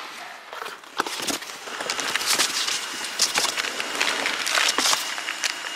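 Cardboard box flaps and packaging being handled, with rustling and crinkling and a series of small sharp crackles as a box of hard drives in a foam insert is opened. A faint steady high whine sits underneath from about two seconds in.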